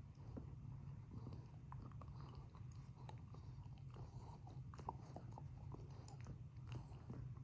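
A Staffordshire bull terrier chewing, with irregular small crunching clicks over a low steady hum.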